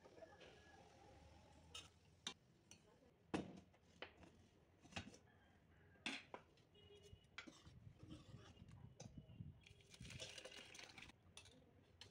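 Steel ladle clinking and scraping against steel cooking pots: a handful of separate sharp taps, then about a second of rougher scraping near the end.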